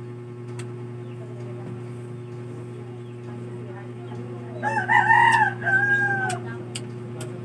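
A rooster crowing once, about five seconds in: a wavering call followed by a held note that falls off at the end, over a steady low hum.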